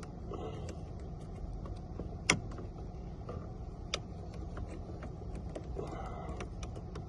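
A sharp click about two seconds in and a lighter click near four seconds, over a steady low rumble.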